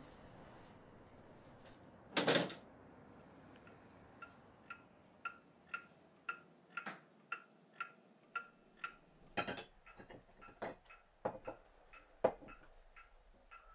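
A single heavy thud about two seconds in, then a pendulum wall clock ticking steadily, about two ticks a second, with a few louder knocks mixed in near the end.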